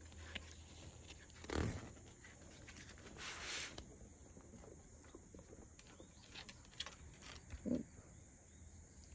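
A picture book's paper pages being handled and turned: a soft thump about a second and a half in, then a brief paper swish about three seconds in, over a faint steady high hiss.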